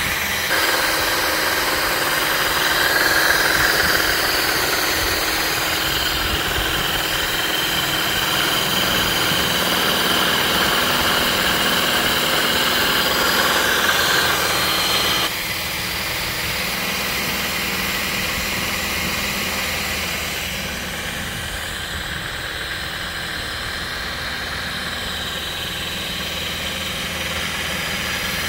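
DeWalt 20V Atomic cordless drill running steadily, turning a drill-paddle propeller in the water to push two lashed-together kayaks. It gives a continuous motor whine that drops a little in loudness about halfway through.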